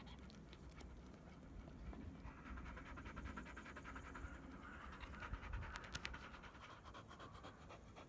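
Black Labrador retriever panting steadily close up, with a couple of sharp clicks a little past the middle.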